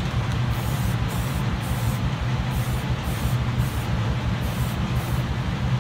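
Aerosol can of filler primer spraying in short passes: a hiss that starts and stops about every half second. Under it runs the steady low hum of a ventilation fan drawing the overspray away.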